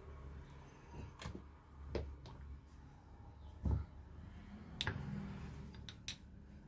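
Metal parts and hand tools knocking and clinking during a starter motor repair. There are several separate knocks, the loudest about three and a half seconds in, and a short ringing clink near five seconds, over a steady low hum.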